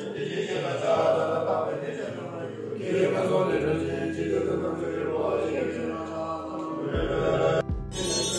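Male voices chanting a Buddhist mantra in a low, sustained drone, with a deeper hum joining partway through. The chant breaks off briefly near the end.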